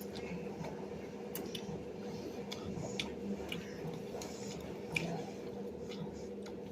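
A person chewing food with wet, squishy mouth sounds and scattered small clicks, the sharpest about five seconds in, over a steady low hum.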